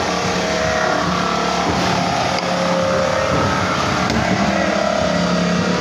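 A machine running with a steady droning hum and a higher whine above it.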